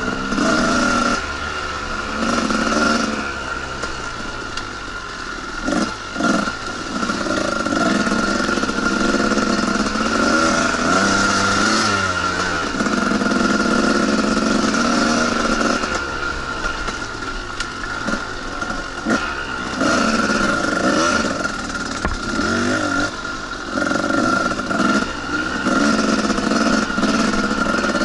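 Two-stroke dirt bike engine revving up and easing off in repeated stretches while riding a trail, with a few sharp knocks from the bike over rough ground.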